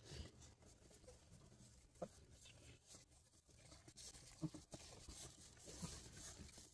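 Faint rustling in wood-shavings bedding and a few brief faint squeaks from bloodhound puppies nursing.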